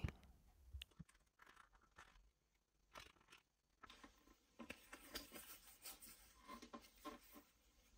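Near silence, with faint, scattered clicks and scrapes of hands handling a phone and small repair tools on a silicone mat.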